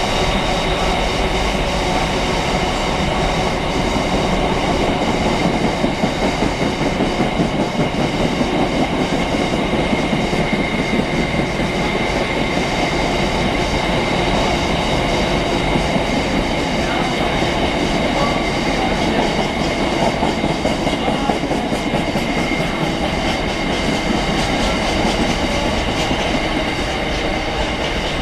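Freight train rolling through at speed, its wagon wheels clattering rhythmically over the rail joints, with a steady high tone above the rumble. The sound eases slightly near the end.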